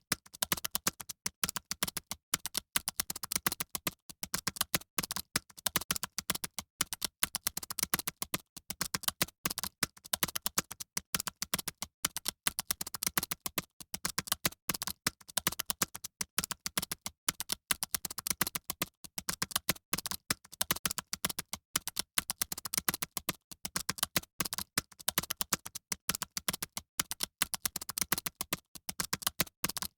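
Fast typing on computer keyboards: a dense, unbroken run of rapid key clicks in a small room, like a hall of candidates typing at once.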